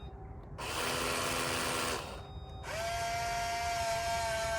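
Jabo II bait boat's small electric unloading motor whirring in two runs, the second carrying a steady whine, as the bait release drops its load. It is fairly noisy.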